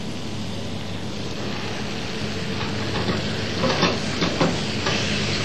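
Tomato concassé and chopped shallots sizzling steadily in butter in a small frying pan, with a few short scrapes and knocks against the pan between three and a half and four and a half seconds in, as the pan is handled.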